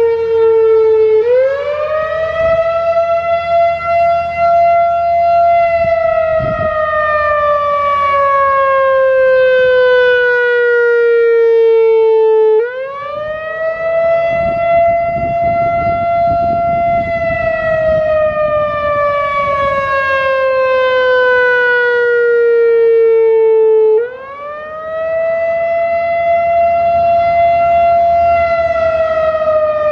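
Whelen WPS-4004 analog electronic outdoor warning siren sounding its wailing Attack signal. Each cycle, about 11 seconds long, is a quick rise in pitch, a hold of about four seconds, and a long slow fall. Three rises are heard, about a second in, near the middle, and near the end.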